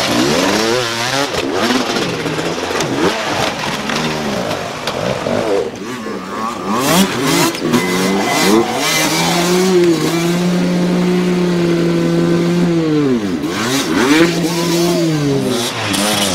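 Dirt bike engines revving hard, their pitch rising and falling with the throttle. In the second half one engine is held at steady high revs for a few seconds, drops off briefly, then revs up again.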